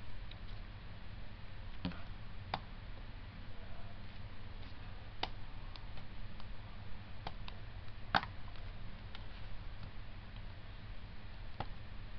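About nine sparse, irregular clicks at a computer desk, such as keys being pressed, over a steady low hum; the loudest click comes about two-thirds of the way through.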